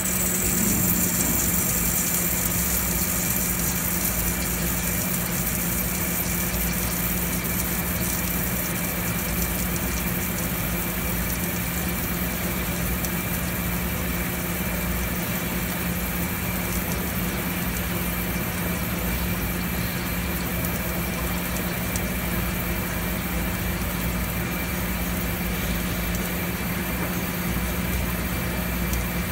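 EDM machine running with a steady hum, a constant low tone under an even hiss.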